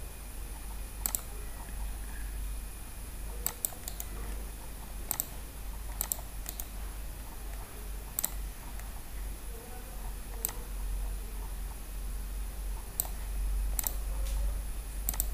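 Computer mouse clicking: about a dozen sharp, scattered single and double clicks spaced irregularly, over a steady low hum.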